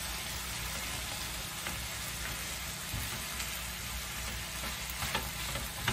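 Chicken and vegetables in soy sauce and cornstarch slurry sizzling in a frying pan while a spatula stirs through them, with a few light scrapes and taps.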